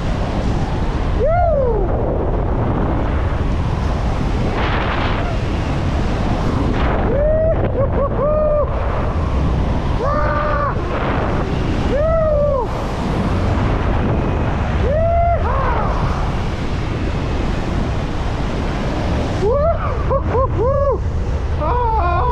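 Strong wind rushing over the microphone in flight, loud and steady, with short pitched sounds that rise and fall in pitch every couple of seconds and come in a quick cluster near the end.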